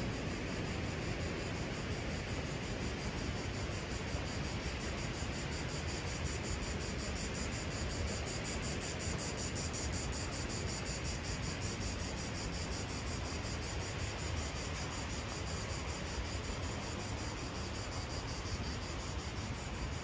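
Steady rushing roar of the Marmore Falls (Cascata delle Marmore) pouring down, with insects trilling in a fast, even pulse high above it.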